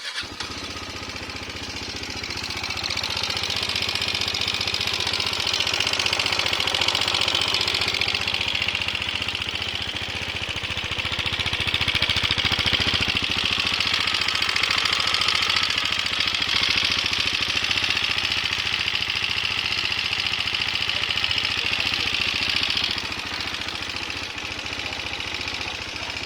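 KTM Duke 390 single-cylinder engine running with a very bad sound, a sign of an engine problem. It gets a little louder over the first few seconds and stays steady after that.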